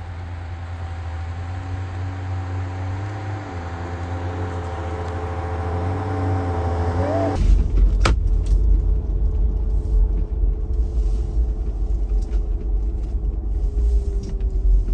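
Jeep engine working under load on a snowy hill climb, its pitch wavering as it slowly gets louder. About seven seconds in the sound changes abruptly to a deeper, heavier rumble, with one sharp knock just after.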